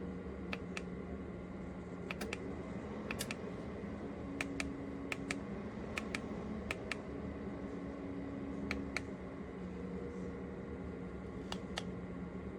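Scattered sharp clicks at irregular intervals, some in quick pairs and triplets, over a steady low hum.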